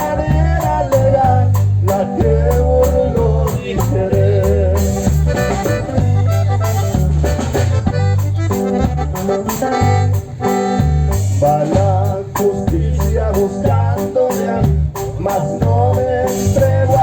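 Cumbia tejana band playing: a steady bass line, a melody line over it and constant shaker-like percussion keeping the beat.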